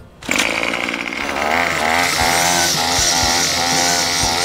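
Gas-powered string trimmer (weed eater) engine starting abruptly and running at high revs, its pitch rising and falling as the throttle is worked while it cuts grass and weeds.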